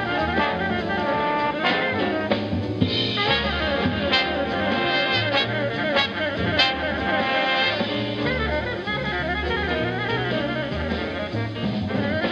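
Big-band jazz ensemble playing a groove blues, with saxophones, trumpets and trombones over piano, bass and drums. An alto saxophone plays at first, and the full band grows fuller and brighter about three seconds in.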